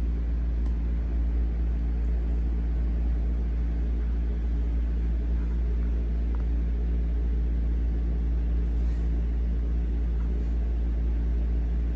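A steady low droning hum with an even level throughout.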